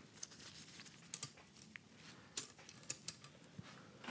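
A few faint, scattered metal clicks as new valve springs and retainers are handled and set in place on an aluminium LS1 cylinder head.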